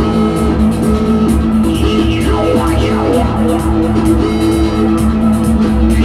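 Live instrumental jam: a drum-machine beat with a steady hi-hat pulse and kick under held synth chords, with an electric guitar playing sliding, bending notes. Near the middle one line glides down in pitch.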